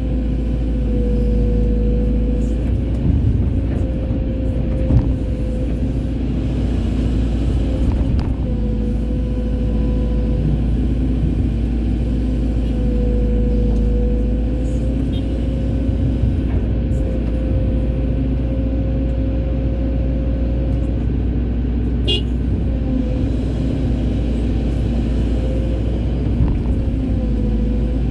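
Excavator's diesel engine running steadily under load, with a hydraulic whine that dips and rises slightly in pitch as the arm works. A few brief knocks stand out.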